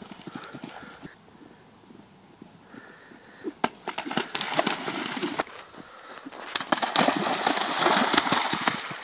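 Horse's hoofbeats, then a horse cantering through a shallow water jump, hooves splashing and throwing water. The splashing starts about three and a half seconds in and is loudest near the end.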